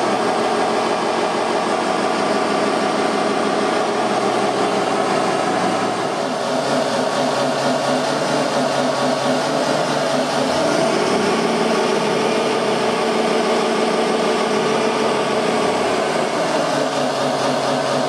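Radio-controlled scale construction machines running, a dump truck and a Komatsu wheel loader: a steady whirr of electric motors and hydraulic pump, shifting in pitch a few times as they move and lift.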